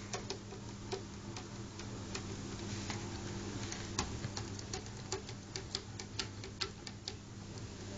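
A cat's paws and claws tapping against mirror glass as it bats at its own reflection: irregular light clicks, a few a second, the sharpest about halfway through, over a steady low hum.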